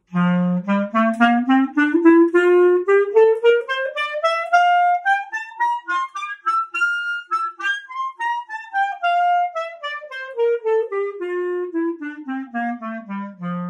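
Clarinet playing an F major concert scale across three octaves, stepping up note by note from low F to high F and back down again, with the first, top and last notes held a little longer.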